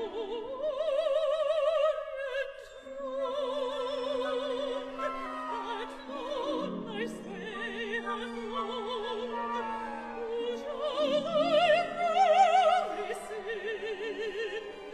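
A woman sings long, slow phrases in operatic style with a wide vibrato, over an orchestra holding sustained chords.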